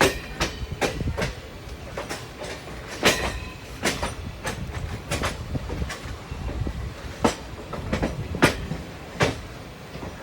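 Passenger coach wheels knocking over rail joints and points, heard from on board a train entering a junction. The knocks come irregularly, about one every half second to a second, over a steady low rumble.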